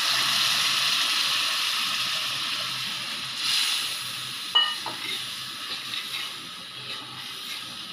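Tamarind water poured into hot oil and fried masala in a pan, sizzling loudly at first and slowly dying down as it is stirred with a spoon. One sharp knock of the spoon against the pan comes about four and a half seconds in.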